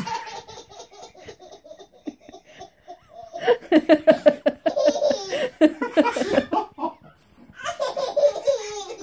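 Hearty laughter in a quick ha-ha-ha rhythm, faint at first, swelling about three seconds in, pausing briefly near seven seconds and starting up again.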